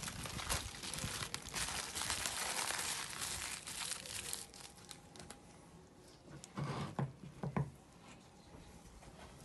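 Aluminium foil being peeled off and crumpled by gloved hands, a dense crinkling that fades out after about four seconds. Then two short dull knocks come about a second apart, as the wooden cutting board is handled.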